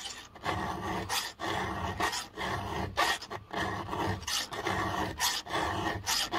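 Round 7/32 chainsaw file rasping through a cutter tooth of a 3/8 full-comp saw chain in repeated, evenly paced push strokes: a slightly dull tooth being hand-sharpened.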